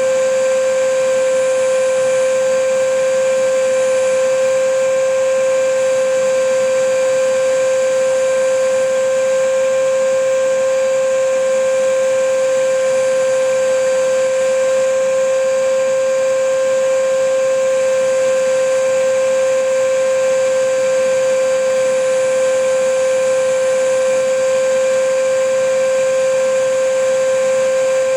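Vacuum cleaner running steadily: an unchanging motor whine with one strong pitch over a rushing hiss of air.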